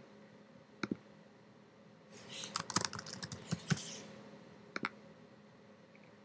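Typing on a computer keyboard: a quick run of keystrokes for about two seconds in the middle, with a pair of clicks about a second in and another pair near five seconds.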